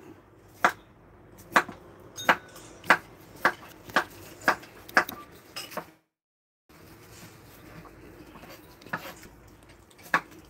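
Knife chopping on a cutting board: sharp, regular knocks about two a second, pausing around the middle and starting again near the end.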